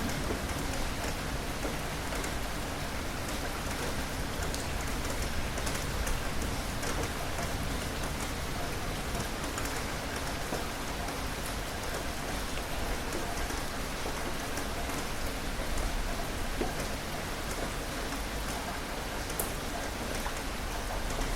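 Rain falling steadily: a dense, even hiss with scattered sharper ticks of drops striking a surface.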